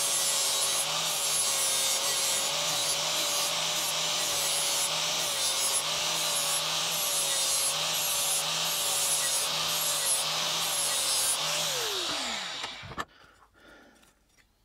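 Makita angle grinder with an 80-grit flap disc grinding the end of a lawn mower blade square and flat, running steadily with a high whine over a rasping grind. About 12 seconds in it is switched off and the whine falls away as the disc spins down.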